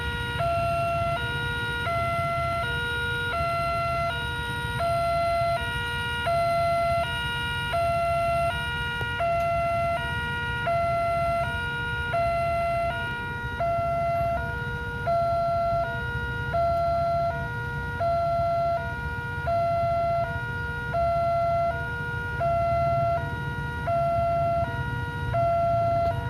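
Railway level-crossing warning alarm sounding continuously: an electronic two-tone signal alternating high and low, about one cycle every second and a half. It signals that a train is approaching and the barriers are closed.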